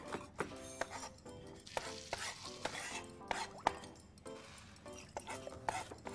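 Chef's knife chopping red bell pepper on a plastic cutting board: a run of short, irregular knocks of the blade striking the board, roughly two a second.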